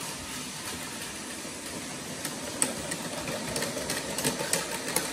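Plarail Advance battery-powered toy trains running on plastic track: a steady small-motor whir, with sharp clicks that come more often from about halfway through.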